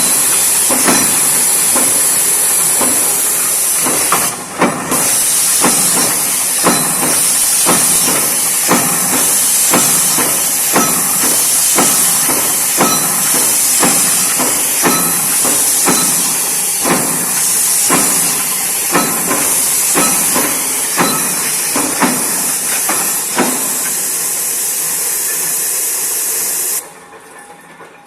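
CNC punch press punching sheet-metal plate: a long run of sharp strokes, roughly one or two a second, over a steady loud hiss that dies away near the end.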